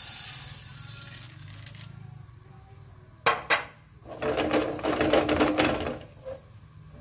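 Dry popcorn kernels pouring from a plastic bowl into a wok of oil, a pattering hiss that fades over the first two seconds. About three seconds in come two sharp clicks, then about two seconds of loud rattling as the wok is shaken on the gas burner to spread the kernels.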